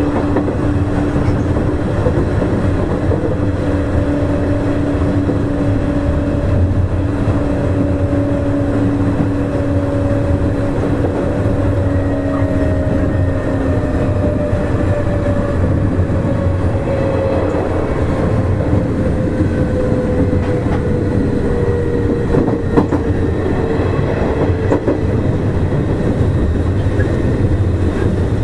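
Nishitetsu 5000 series electric train running, heard from inside the car: a steady rumble of wheels on rail with a motor and gear whine. The whine slowly falls in pitch over the second half, and there are a few faint rail-joint clicks.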